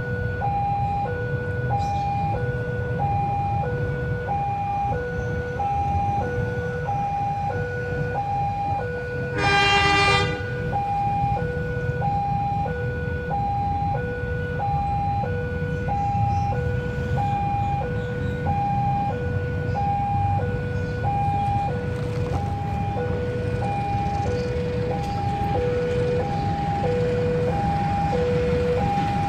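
Railway level-crossing warning alarm sounding a steady high-low two-tone, about one high-low pair a second, over a low rumble. About ten seconds in, the approaching CC201 diesel locomotive gives one short horn blast.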